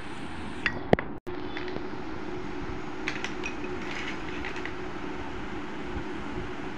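Broken terracotta diya pieces clinking and tapping against each other as they are picked up and handled: a sharp clack about a second in, then a run of small clinks a couple of seconds later, over a steady background hum.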